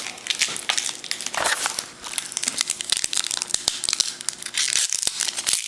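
Foil wrapper of a trading card pack crinkling and tearing as it is handled and opened, with dense small crackles throughout.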